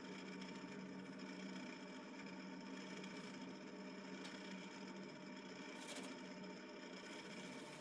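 Wood lathe motor running steadily while a hand-held turning tool cuts a spinning block of western red cedar: a constant motor hum under the hiss of the cut.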